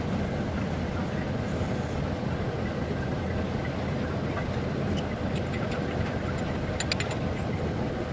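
A steady low rumble, with a few light metallic clicks about five and seven seconds in as the parts of a brass chakli press are handled and fitted together.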